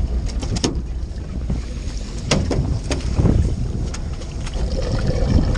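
Steady low rumble of a sportfishing boat under way, with wind buffeting the microphone. A few sharp knocks come about half a second in and again between two and three seconds in.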